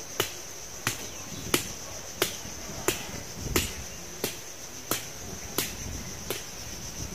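Sharp knocks repeating at an even pace, about three every two seconds, over a steady high drone of insects.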